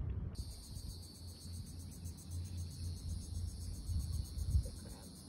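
A steady, fast-pulsing insect chorus, crickets or cicadas, comes in abruptly about a third of a second in, over a low rumble of wind on the microphone.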